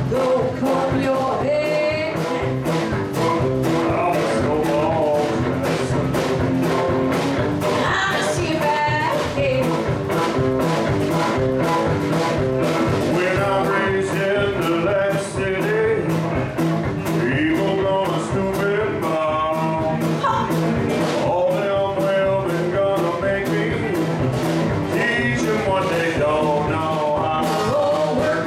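Live band playing a song: singing over an electric guitar and a drum kit keeping a steady beat.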